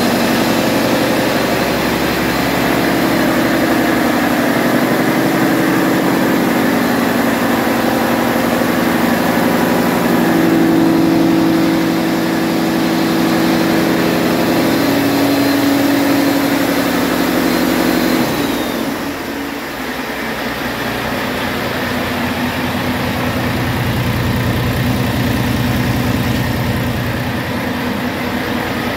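2018 Volvo D13M inline-six turbo diesel on a test run, held at raised revs with a steady drone, then dropping back to idle a little past halfway, its pitch and loudness falling together.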